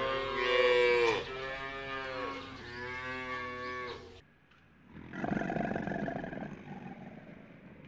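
A cow mooing: about three long, drawn-out calls in a row, the first the loudest, ending about four seconds in. After a short pause comes a harsh, noisy rasping sound with no clear pitch.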